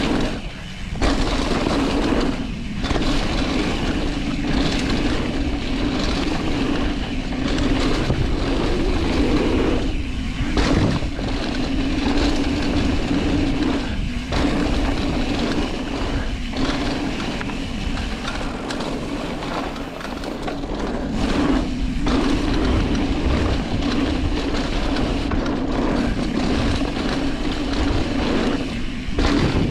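Mountain bike rolling down a dirt trail: continuous tyre and ride noise from the bike over the ground, with brief dips every few seconds.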